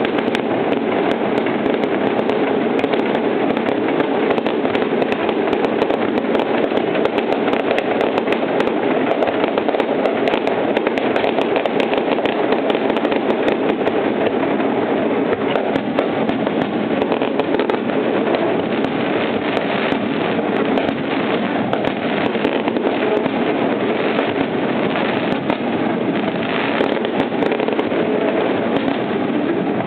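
Fireworks going off in a dense, continuous barrage: a steady mass of crackling bangs with no pauses.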